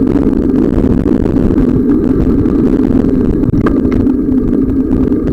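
Steady loud rumble from filming while riding a bicycle: wind buffeting the microphone together with the bike's tyre and frame noise.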